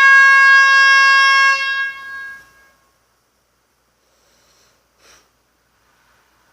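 A loud air horn sounding one steady, held note that drops away and fades out about two and a half seconds in, followed by a faint click near the five-second mark.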